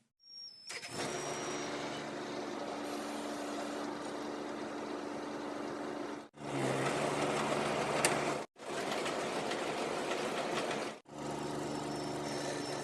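Kubota DC35 combine harvester's diesel engine running steadily. It is heard in several short stretches broken by abrupt cuts, with a sharp click about eight seconds in.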